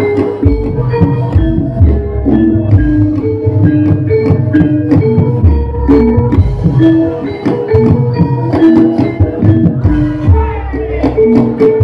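Live gamelan music accompanying a jathilan horse dance: drums and tuned metal percussion playing a busy, driving pattern of short struck notes.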